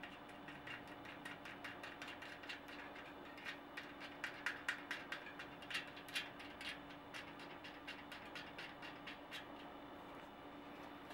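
A bicycle tyre's bead being pushed over the rim by hand, giving many small irregular clicks and rubs that come thickest in the middle, over a steady low hum.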